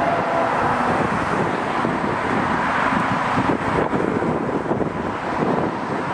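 Steady outdoor rumble of wind on the microphone and distant road traffic, with the far-off approaching diesel passenger train blended in, not yet distinct.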